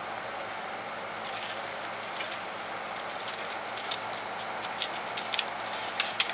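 Rock iguana's claws scratching and clicking on a wooden plank as it climbs up onto its platform: a run of short, scratchy clicks that starts about a second in and gets busier toward the end, over a steady background hiss.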